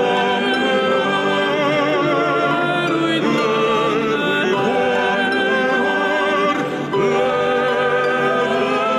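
Two lyric tenor-range male soloists singing in operatic style with a male choir, to harp accompaniment. The voices hold long notes with vibrato, with a brief break in the sound just before seven seconds in.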